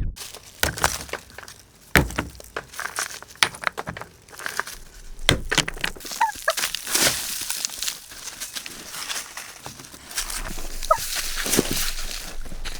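Irregular knocks and clicks, with a few short chirps.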